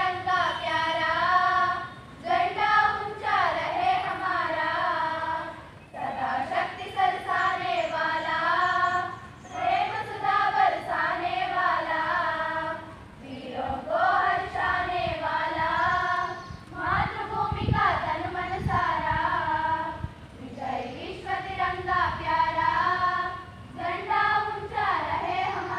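Large group of schoolchildren singing together in chorus, in sung phrases of a few seconds with short pauses between them.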